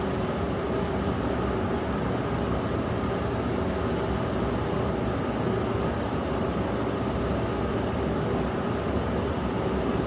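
London Underground train running with a steady hum and a few faint steady tones, holding level without rising or fading.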